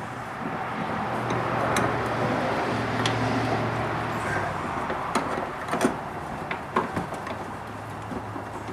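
Scattered metal clicks and knocks as a bolt is started into the lower door hinge of a Jeep Grand Cherokee, with rustling handling noise over a steady low hum.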